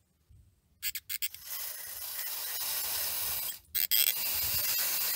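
Aerosol can of WD-40 Specialist Electrical Contact Cleaner spraying onto a car's mass airflow sensor. It goes as two long steady hisses, each opened by a few short spurts, with a brief break a little past the middle.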